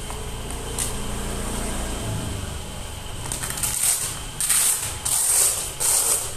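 Blood pressure cuff being handled on a patient's arm: four short rasping bursts, about 0.7 s apart, in the second half, over a steady low hum.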